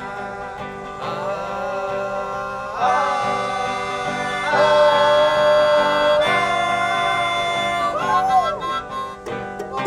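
Harmonica played in long held notes and chords, over a guitar accompaniment.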